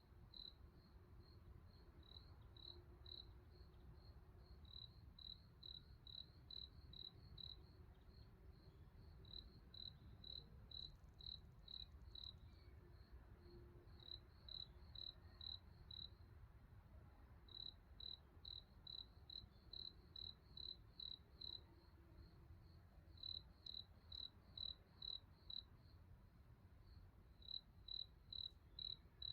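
A cricket chirping at night: a single high, clear chirp repeated about two to three times a second in runs of a few seconds, separated by short pauses, faint over a low background rumble.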